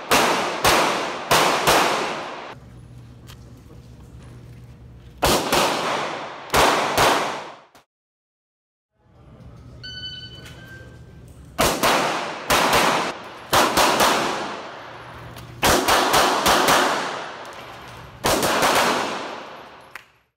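Pistol shots fired in quick strings of two to four, each ringing on in the reverberation of an indoor range, about five strings in all. A short electronic beep sounds about halfway through.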